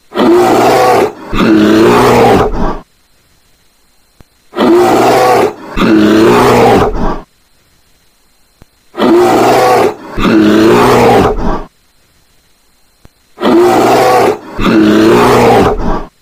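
Polar bear roaring: a pair of deep, growling roars, each about a second and a half long, repeated four times at even intervals with silent gaps between the pairs.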